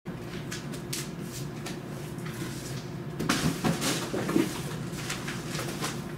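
Motorized display turntable running with a steady low hum and irregular light clicks and creaks, which grow louder and busier about three to four and a half seconds in.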